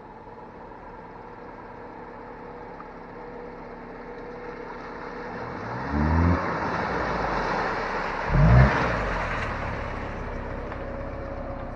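A 1999 Subaru Forester's flat-four engine growing louder as the car drives up and past on a muddy dirt trail, revved briefly twice, about six and eight and a half seconds in. Tyre noise on the wet ground swells as it passes close.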